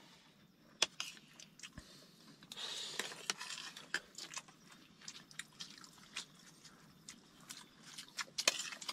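A person chewing and eating close to the microphone, with small sharp clicks scattered throughout, a soft hiss about three seconds in, and a quick run of clicks near the end.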